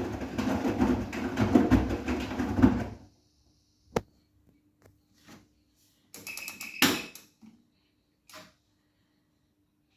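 Bosch front-loading washing machine on a 90 °C cotton wash: the drum turning with a churning rumble of wet towels that stops abruptly about three seconds in. A faint steady hum remains, with a sharp click and then a brief clatter a few seconds later.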